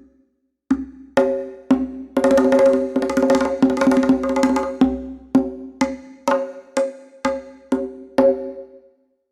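Sampled Middle Eastern pitched percussion from the Native Instruments Discovery Series: Middle East Kontakt library, struck at one ringing pitch. After a short pause come a few single strokes, then a fast flurry of strokes in the middle, then single strokes about twice a second that die away near the end.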